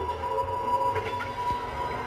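Background music: a steady held tone over a low rumble.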